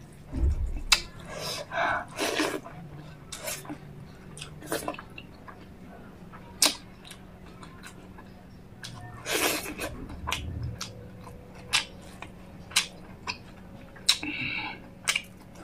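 Close-miked eating sounds: a person chewing with scattered short lip smacks and mouth clicks while eating rice and chicken gravy by hand.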